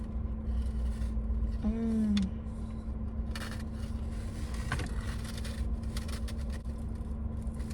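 Chewing toast, with a short 'mmm' of enjoyment falling in pitch about two seconds in, over a steady low rumble and hum.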